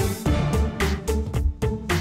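Upbeat background music with a steady drum beat and bass.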